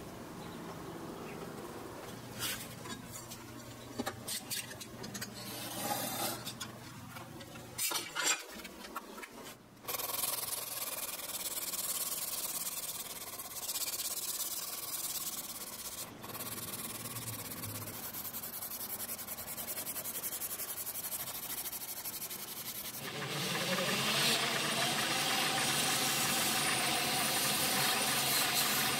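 Abrasive sanding strips rubbed back and forth by hand over a karambit's resin handle scales. About three quarters of the way in, a small belt sander's motor starts with a rising whine and runs steadily, louder, as the handle is pressed against the belt.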